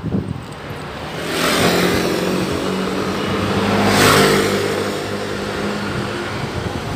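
Small motor scooter engine running at a steady pitch while riding, with wind rushing over the microphone; the rush swells loudest about four seconds in.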